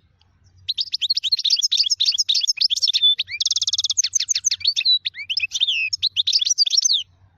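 Finch singing a fast, twittering song of quick sweeping high notes, with a rapid even trill about three and a half seconds in. The song starts just under a second in and stops abruptly about seven seconds in.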